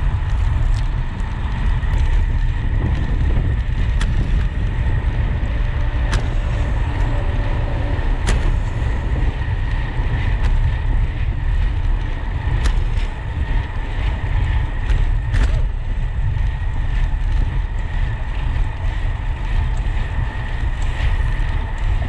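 Wind buffeting the microphone of a camera riding along on a moving bicycle, a loud, steady low rumble, with a faint steady whine and a few sharp clicks from bumps in the ride.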